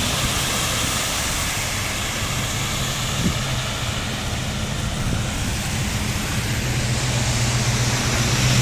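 Steady wash of vehicle and tyre noise on a rain-soaked road, with a low engine hum growing stronger near the end.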